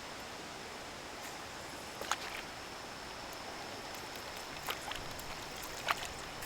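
Steady hiss of wind and water washing around a small boat, broken by three sharp clicks or taps about two, four and a half and six seconds in.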